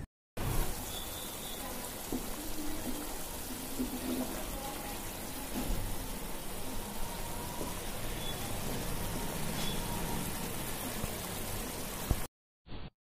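Thick masala fish curry bubbling and sizzling steadily in a pan as it simmers. The sound cuts off suddenly near the end.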